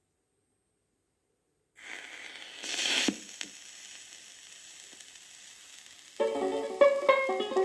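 Silence, then a 78 rpm record's surface noise as the stylus rides the groove: a louder burst of crackle about three seconds in, settling to steady hiss and crackle. About six seconds in, an acoustic guitar introduction of plucked notes begins.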